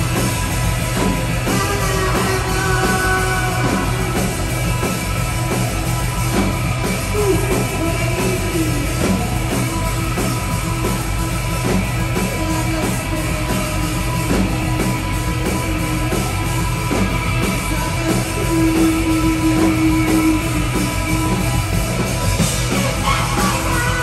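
Live rock band playing loud and steadily: electric guitars, bass and a drum kit, with singing at times.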